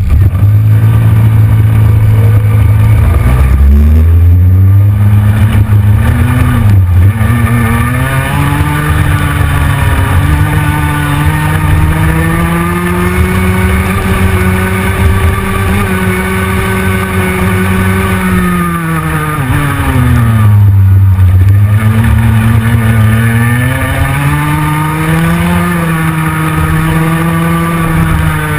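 Go-kart engine heard close up from the kart: a steady low idle that begins climbing in pitch about four seconds in as the kart pulls away, rising gradually with speed, dropping back around twenty seconds in and then rising again.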